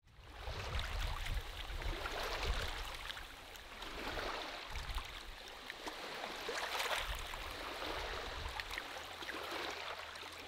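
Running water gurgling and trickling, a steady rush with small splashes, fading in at the start and fading out at the end.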